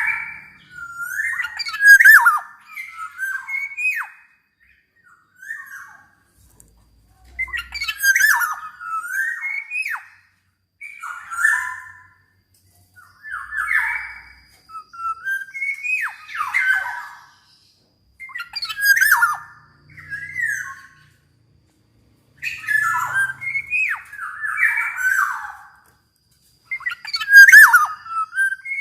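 Black-naped oriole (kepodang emas) singing vigorously in a run of short song phrases, each one to three seconds long, separated by brief pauses.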